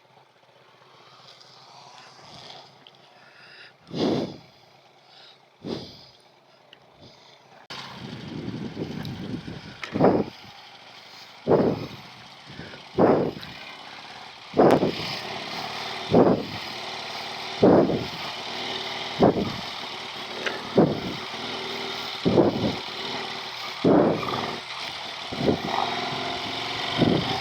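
Riding noise from a moving motorcycle: steady wind and road noise that grows louder about eight seconds in, with a sharp thump repeating about every second and a half.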